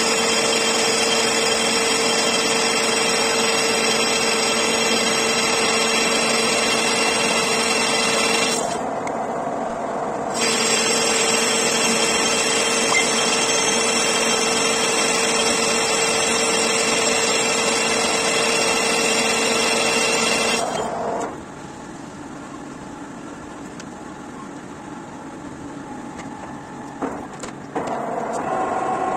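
Metal lathe turning a large bronze ring: the tool cutting with a steady hiss over the whine of the machine's gears as short chips fly off. The cut eases briefly about a third of the way in, then stops about two-thirds through, leaving the quieter running of the lathe with a few clicks before a new tone starts near the end.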